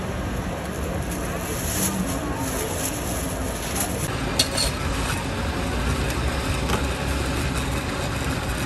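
Steady background noise of a busy night market, with faint voices in it, and one sharp click a little over four seconds in.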